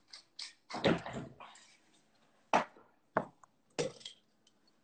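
Hand pepper mill grinding black pepper in short rasps, followed by three sharp clatters of kitchen utensils against a cooking pot.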